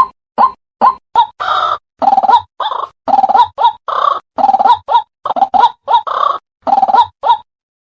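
White-breasted waterhen calling: a run of short croaking notes about two a second, joined from about a second and a half in by longer harsh croaks, the calls crowding together before breaking off shortly before the end.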